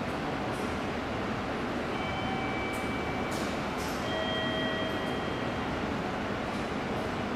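Seibu Series 20000 electric train standing at a station platform, its onboard equipment running with a steady noise. Faint steady whining tones come and go, and several short hisses sound in the first half.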